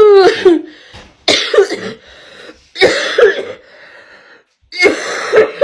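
A woman coughing hard and uncontrollably in four fits, roughly a second and a half apart, after inhaling a dab of cannabis concentrate.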